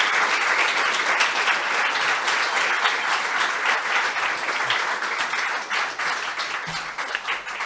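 An audience applauding: many hands clapping at once, a dense steady clatter that eases off a little near the end.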